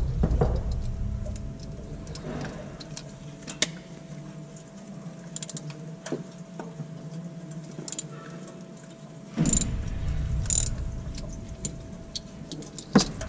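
Socket ratchet clicking and metal tools clinking while a fastener is worked under the car's oil filter area, with a steady faint hum. A louder rushing noise joins for a few seconds after the middle.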